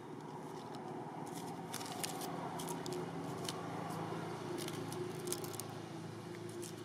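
A steady low hum with a scattered run of short, sharp clicks through the middle.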